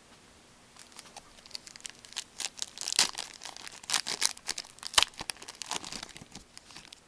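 A hockey card pack wrapper being torn open and crinkled by hand, with irregular crackling rustles, the sharpest about three and five seconds in.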